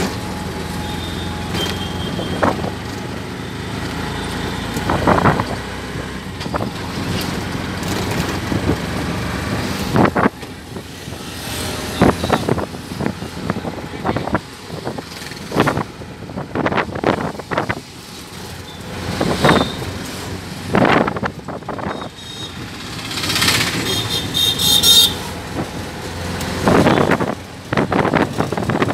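Ride inside a moving auto-rickshaw: its small engine runs with street traffic around it. Through the second half, sudden loud knocks and bangs come often and irregularly.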